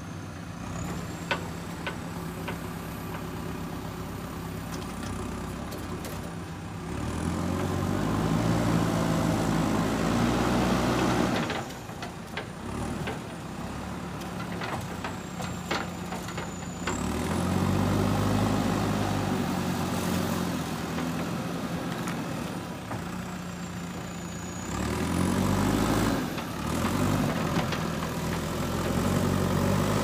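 JCB backhoe loader's diesel engine running at idle, then revving up three times for several seconds each as the hydraulic loader and arms are worked. A few sharp clicks sound near the start.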